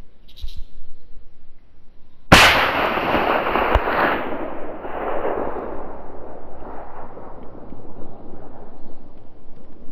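A single hunting rifle shot at a roe buck about two seconds in: a sudden loud crack followed by a long rolling echo that fades over several seconds. A short sharp knock comes about a second and a half after the shot.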